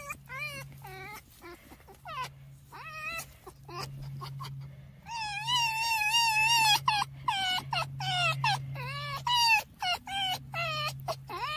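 Red fox whining in a rapid series of short, high, wavering squeals as it play-fights with a hand. About five seconds in comes a longer, louder warbling whine of a couple of seconds.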